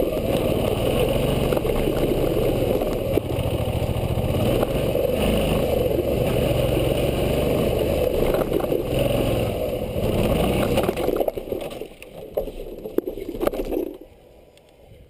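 Suzuki V-Strom 650's V-twin engine running under way on a dirt trail. About eleven seconds in the sound falls away, leaving a few faint clicks near the end.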